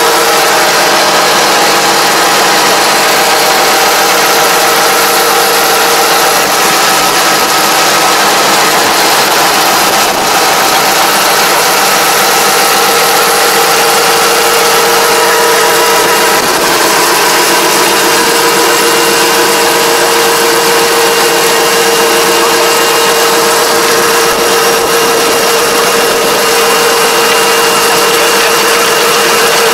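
Tractor engine running steadily under load, driving a PTO-powered Kobashi Gaia levee builder as its disc shapes the mud levee at the field edge: an even mechanical drone with a few steady held tones.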